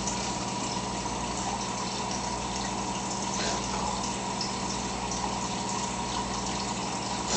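Aquarium filter running: a steady rush of moving water over a low, even electric hum.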